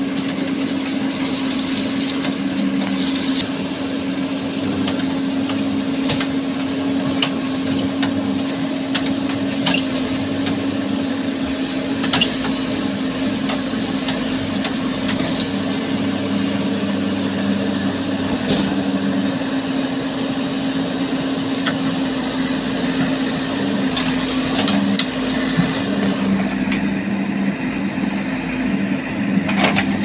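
JCB 3DX backhoe loader's diesel engine running steadily as it works thorny bamboo, with scattered sharp cracks and snaps of bamboo canes breaking.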